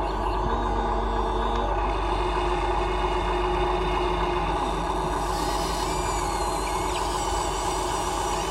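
Radio-controlled Huina excavator's small electric motors and gearboxes running under load: a steady whirring, with brief higher whines coming and going.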